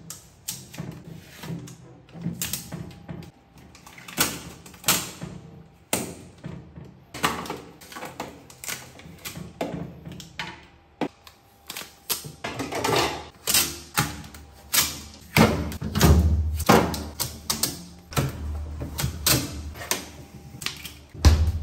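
Protective adhesive tape being peeled off the plastic shelves and walls of a new refrigerator: a run of irregular sticky ripping and crackling strokes, with a few dull thumps in the second half.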